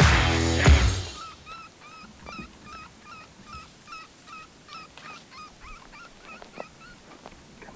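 Theme music fading out about a second in, then an electronic predator call playing a looped animal distress sound: short, high, identical calls repeating about three times a second.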